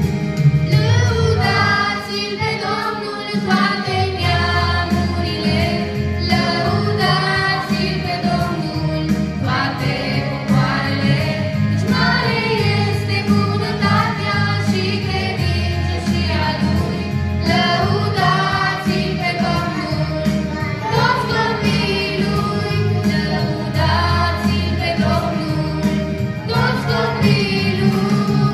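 A family group of women, men and children singing a Romanian worship song together into microphones, over an instrumental accompaniment with steady bass notes.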